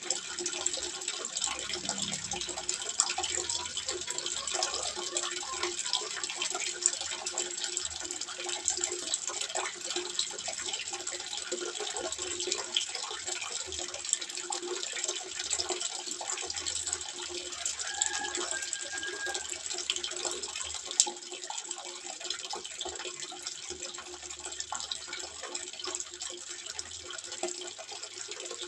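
Water trickling and splashing steadily into a small fish pond, a continuous patter of small splashes.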